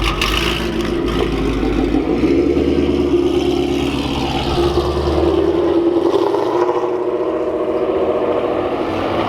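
Car engine running steadily, with a deep low rumble under it that drops away a little past halfway through.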